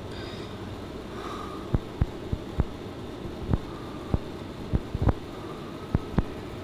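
About a dozen short, sharp knocks or clicks at irregular intervals over a steady low background hum. The loudest come about five seconds in.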